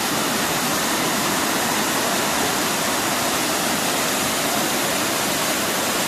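Small stepped waterfall pouring over a rock ledge into a pool: a steady rush of water.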